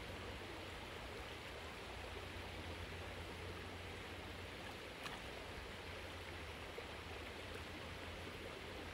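Steady rush of a shallow creek, with light water sloshing as a dog paddles and wades in it. A single brief tap about halfway through.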